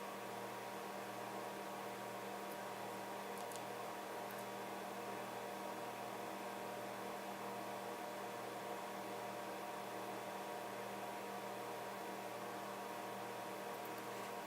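Steady electrical mains hum over faint hiss, even throughout, with a couple of faint ticks about three and a half seconds in.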